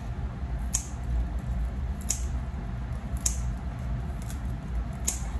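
Spring onion leaves being cut off one at a time: four sharp, crisp snips about a second apart, over a steady low hum.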